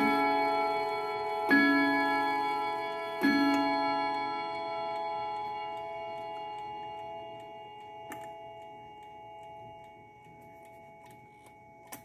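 Howard Miller triple-chime clock striking the hour on its chime rods: two more strokes about 1.7 s apart, each ringing on and slowly fading over several seconds. Faint clicks follow near the end.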